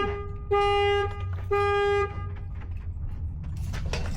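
Car horn honking in regular pulses, each about half a second long and about one a second, the pattern of a car alarm going off; the last two honks end about two seconds in, leaving a low rumble and a few faint clatters.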